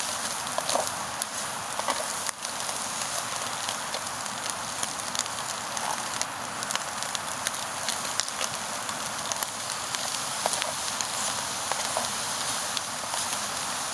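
Ham and mushrooms frying in a pan on a Trangia camp stove, sizzling steadily with fine crackles and pops, while a spoon stirs them.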